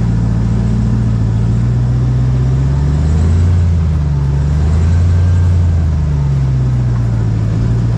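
Ram 1500 TRX's supercharged 6.2-litre Hemi V8 running at low revs while crawling over rocks. Its pitch dips and rises a couple of times in the middle.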